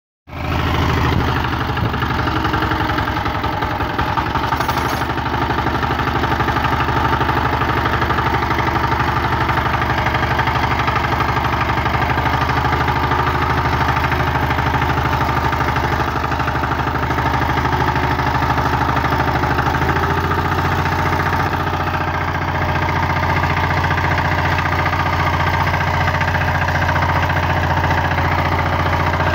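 Engine of a Ruris two-wheel walking tractor (motocultor) running steadily under load as it pulls a potato digger through the soil, with a knocking clatter; its note shifts slightly about two-thirds of the way through.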